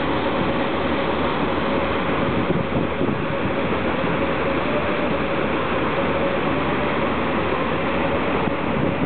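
Stern paddle wheel of the Michigan cruise boat churning and splashing the lake water, over the steady hum of the boat's machinery.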